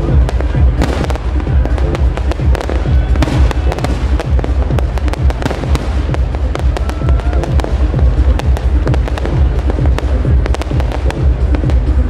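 Fireworks crackling and popping in rapid, dense strings over loud electronic dance music with a heavy, steady bass beat.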